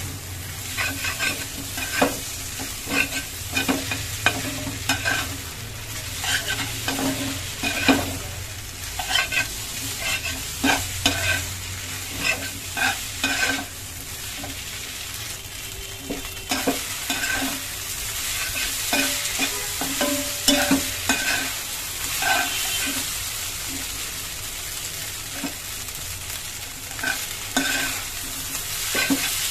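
Instant noodles with egg being stir-fried in a pan: steady sizzling under repeated scrapes and clacks of a metal spatula against the pan, with a few short lulls in the stirring.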